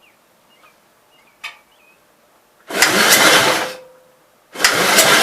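Starter cranking the 1952 Gravely L's single-cylinder engine in two bursts without it catching: first about a second long, the second starting near the end. It is trying to start, but the owner takes the starter for bad.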